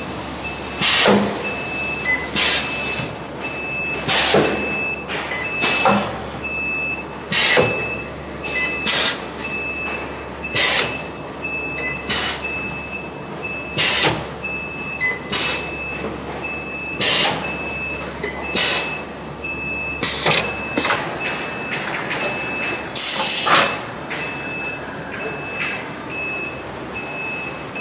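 A stove-grate automatic butt welding machine cycling: a sharp burst of noise every one and a half to two seconds as its pneumatic clamps and welding heads work, over a steady machine hum. A high tone pulses on and off in the background.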